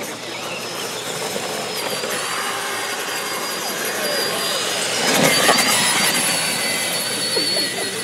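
Traxxas Summit electric RC monster truck climbing a loose hillside: a thin, wavering high whine from its electric motor and drivetrain over the scrabble of its tyres on loose shale and leaves, loudest about five seconds in as it passes close.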